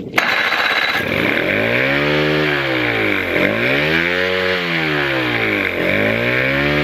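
1989 Johnson/Evinrude 50 hp two-stroke outboard running on newly fitted rebuilt carburetors in a test run, with the engine speed rising and falling in three slow swells.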